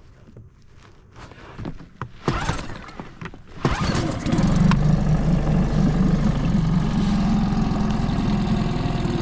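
Tohatsu 20 hp outboard motor being pull-started with its rope, catching about four seconds in and then running steadily.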